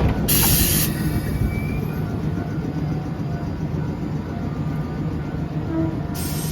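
Choshi Electric Railway local train running, heard from inside the car: a steady low rumble of motor and wheels with a hum, a short burst of hiss just after the start and another near the end.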